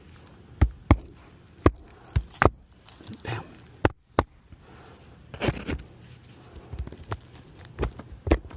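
Irregular sharp taps and knocks, about a dozen, with two brief scrapes, from someone moving about and handling the shingles on an asphalt shingle roof.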